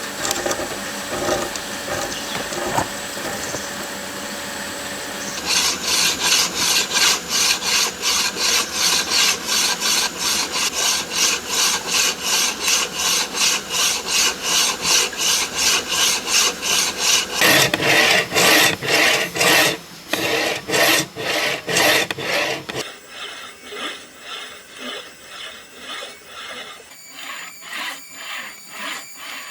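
Hand tool worked back and forth on wood in steady rhythmic strokes, about two to three a second, each a rasping scrape. The strokes start a few seconds in, and they turn much quieter about three-quarters of the way through.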